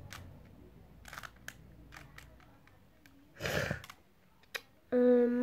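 Plastic Rubik's Cube layers being twisted by hand: a run of quick sharp clicks and clacks, with a short noisy rush about three and a half seconds in. About five seconds in, a steady hummed note from the boy starts.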